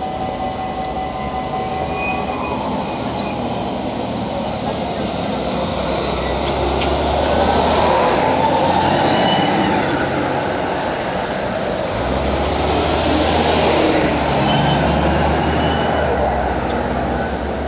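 City buses driving past close by: engine rumble and tyre noise swell to a peak about eight seconds in and again around thirteen seconds. Thin high squealing tones come and go over the traffic noise.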